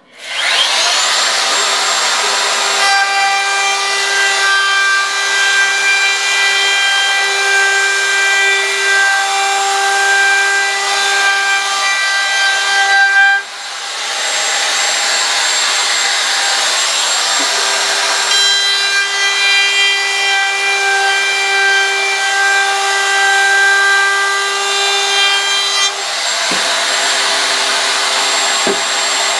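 DeWalt DW618 router with a 45-degree bearing-guided chamfer bit spinning up and then running steadily as it chamfers the edge of a wooden sign board, a high motor whine over the cutting noise. The sound dips briefly about halfway through and eases slightly near the end.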